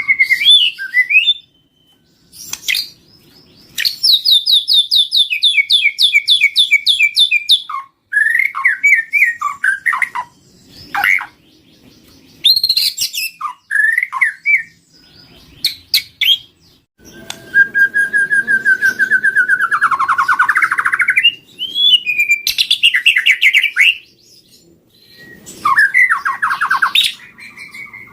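White-rumped shama singing a loud, varied song of whistled phrases broken by short pauses. It includes fast runs of repeated notes and, later, a long trill that rises and falls.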